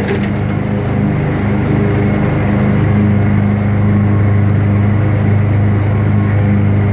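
Gravely ZT XL-60 zero-turn riding mower's engine running steadily as the mower drives along, a loud constant hum.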